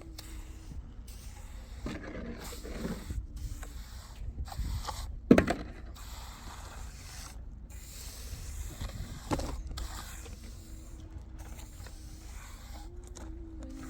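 Scraping and handling noises with one sharp knock about five seconds in and a smaller one near nine seconds, over a faint steady hum that comes and goes.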